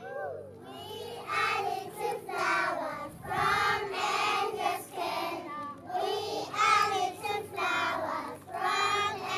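A group of young children singing together in unison, in short, evenly paced phrases.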